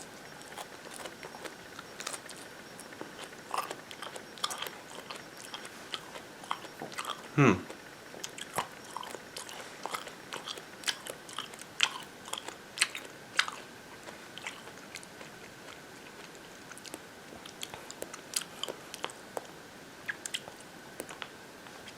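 Close-up biting and chewing of a raw Thai bird's eye chili pepper: many short crunchy clicks and mouth noises at irregular intervals. About seven and a half seconds in comes one brief vocal sound that falls in pitch.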